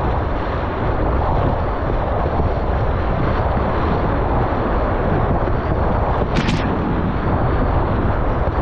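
Whitewater rapids rushing loudly around a kayak being paddled through them, with water and wind buffeting the camera microphone. A couple of sharp clicks about six and a half seconds in.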